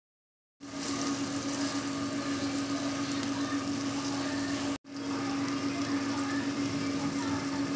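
Mutton pieces frying and sizzling in a pan, with a steady low hum underneath. The sound starts about half a second in and cuts out for an instant near the middle.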